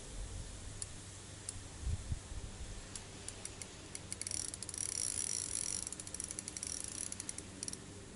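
Fishing reel being wound: a few single clicks, then from about four seconds in a fast run of small clicks with a steady high whir, stopping just before the end. A low bump about two seconds in.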